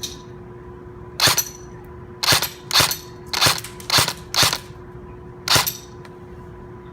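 Airsoft gun firing seven single shots at uneven intervals, each a sharp crack, ending about two-thirds of the way through.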